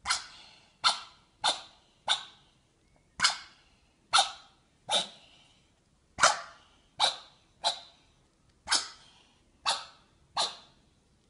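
A cat's short, sharp coughing hiccups, about thirteen in a row at uneven spacing of roughly a second, each one abrupt and quickly dying away.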